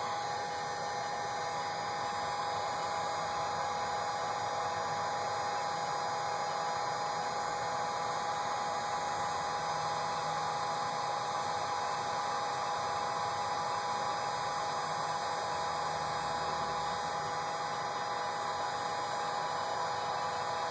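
Electric heat gun running steadily, its fan blowing air with a steady whine over the rush, as it shrinks heat-shrink tubing over a soldered wire splice.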